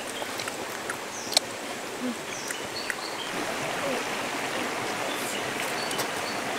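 Stream water rushing steadily over stones, with a few scattered light clicks and taps, the sharpest about a second and a half in.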